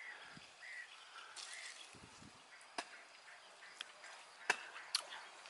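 Faint outdoor quiet with a few short bird-like chirps early on, then four or five small sharp clicks and light rustles in the second half, from hands picking cherries off the branches.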